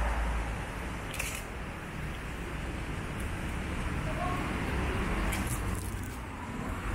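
City street ambience: a passing vehicle fades away at the start, leaving a steady hum of road traffic, with a few faint clicks about a second in and again past five seconds.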